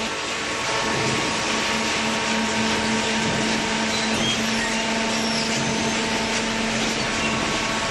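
Cardboard baler machine running steadily: an even mechanical hiss with a constant hum.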